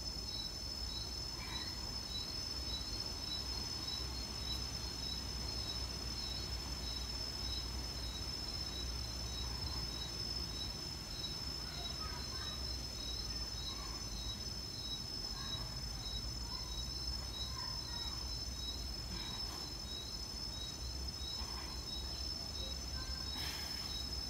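Garden insects, crickets, chirping steadily: several continuous high trills with a regularly repeating chirp beneath them, over a low steady rumble.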